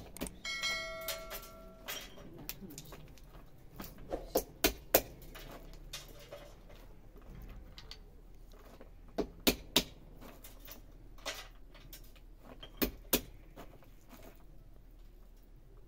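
Walnut shells being cracked open and picked apart by hand, giving scattered sharp cracks and clicks in small clusters. A short electronic chime rings about half a second in.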